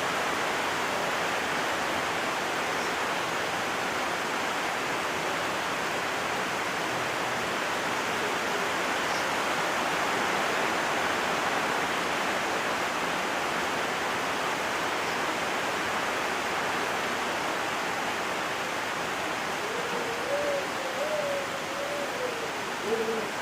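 Heavy rain falling steadily, an even rushing hiss. Near the end a faint wavering tone rises and falls over it for a few seconds.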